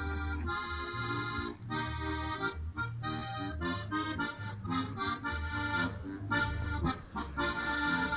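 Accordion playing a lively Tyrolean folk-dance tune, with chords and bass notes in a steady rhythm.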